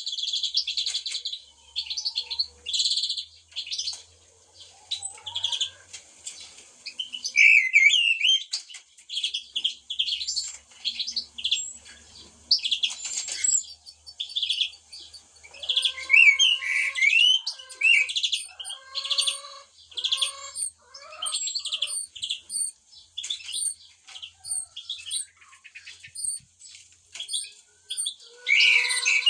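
Several songbirds chirping and twittering at once, blackbirds among them, many short high calls overlapping without a break. From about the middle a lower, repeated call joins in.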